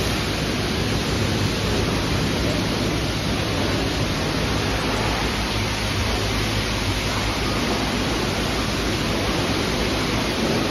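Steady rushing hiss of water and foam at a self-serve car wash, with a foam brush being worked over a car's soapy paintwork.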